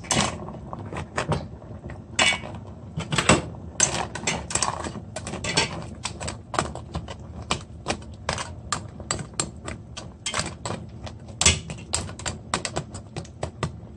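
Crab legs clacking against each other and against a stainless steel stockpot as they are put in and pushed down with a ladle: irregular sharp clicks and knocks, several a second.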